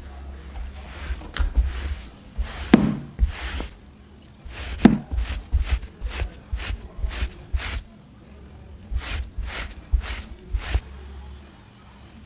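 Pet hair remover brush swiped over a cotton shirt, a run of short brushing swishes about two a second in three bursts, lifting cat hair off the fabric. Two louder thumps come about three and five seconds in.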